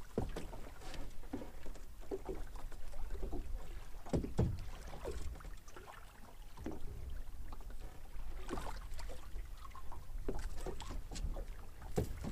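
Water lapping against a small boat's hull with a steady low wind rumble, broken by scattered small knocks and clicks from handling gear aboard.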